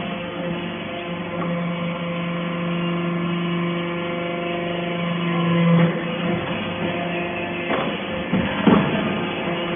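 Hydraulic scrap baler running: its motor and pump hum steadily, the hum swelling and then breaking off about six seconds in, followed by a few metal clanks.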